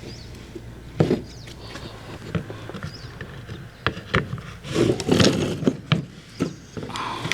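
Scattered knocks, clicks and rattles of a car window regulator being handled and moved, its metal rail and plastic carriers shifting, with a busier cluster of knocks about five seconds in.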